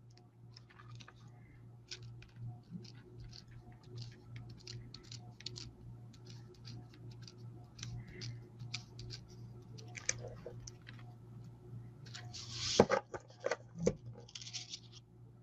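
Paper card pieces being handled: a run of light clicks and taps, then a louder papery rustle and crinkle about thirteen seconds in, over a steady low hum.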